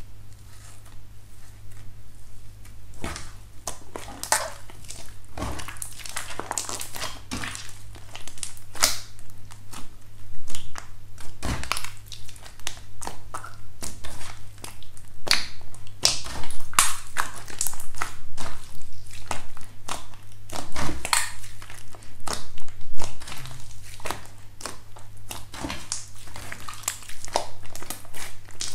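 Clear glitter slime squished, folded and kneaded by hands, crackling and popping with many quick, irregular clicks that grow denser after the first few seconds.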